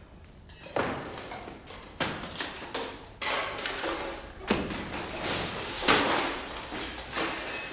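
Heavy thuds, bangs and crashes echoing down a bare hospital corridor as furniture and fittings are smashed and doors slammed in the rooms off it. The first bang comes under a second in, then a rough run of about a dozen blows, the loudest near the end.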